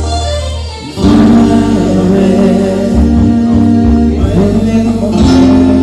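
Band music with guitar playing held notes between sung lines of a song, getting louder about a second in.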